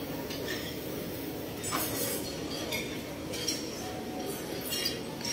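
Buffet dining-room ambience: scattered clinks of dishes and cutlery over a steady low murmur of voices.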